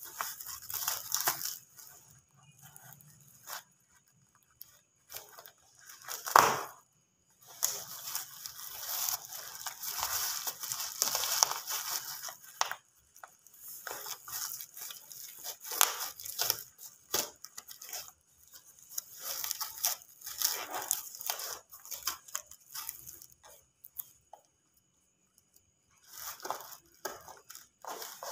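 Cardboard packaging being torn open and crumpled by hand, in irregular bursts of ripping and rustling with short pauses between, and one short, loud crack about six seconds in.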